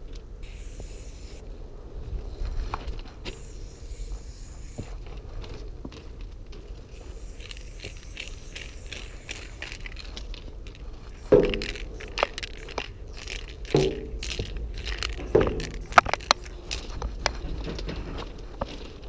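An aerosol spray-paint can gives several short hisses of paint onto the train's metal side. From about halfway, crunching steps on gravel track ballast follow, with a few sharp knocks.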